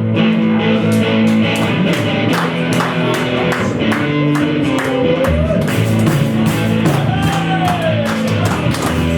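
Live rock band playing with a steady beat and sustained low notes, and a melody line that slides up and down in the middle.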